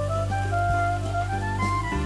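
Background instrumental music: a melody of short held notes climbing in pitch over steady low bass notes.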